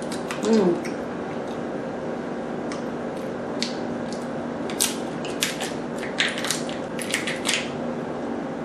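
Cooked lobster shell cracking and snapping as it is pulled apart by hand, a string of sharp cracks from about three seconds in, thickest in the last few seconds, over a steady low hum.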